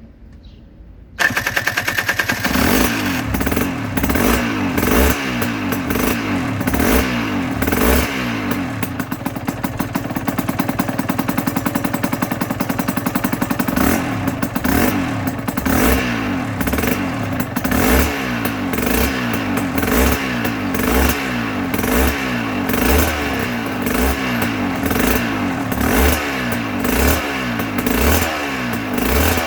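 2008 Aprilia RS125's 125 cc two-stroke single-cylinder engine starts abruptly about a second in, then runs with the throttle blipped again and again, roughly once a second.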